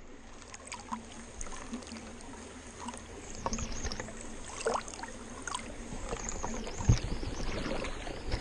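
Water sloshing and splashing in a plastic gold pan as creek gravel is washed over its riffles, with a sharper splash about seven seconds in.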